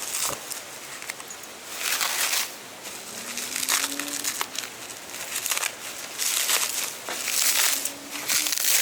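Packing material being pulled off and crumpled from a freshly unboxed replacement dashboard cover, in irregular crinkling rustles about once a second.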